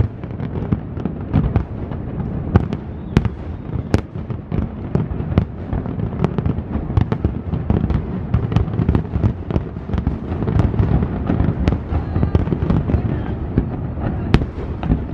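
Aerial fireworks display with many shells bursting at once: a continuous rolling rumble of booms with frequent sharp cracks.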